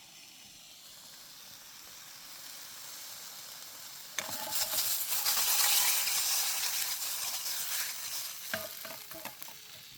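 Pepperoni and hot dogs sizzling in a frying pan. The sizzle turns suddenly louder and crackly about four seconds in, then slowly dies down, with a few sharp clicks near the end.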